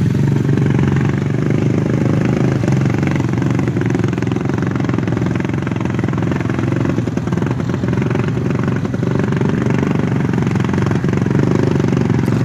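Four-wheeler ATV engine running steadily at an even pitch as the quad wades through muddy water.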